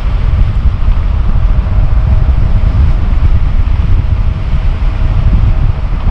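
Heavy wind buffeting on the microphone of a handlebar-mounted action camera on an electric bicycle moving at about 33 mph. A faint steady whine comes and goes under the rumble.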